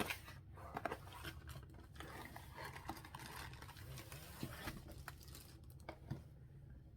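Packaging rustling and crinkling, with small clicks and taps, as a diamond painting kit is unpacked by hand; it dies down in the last second.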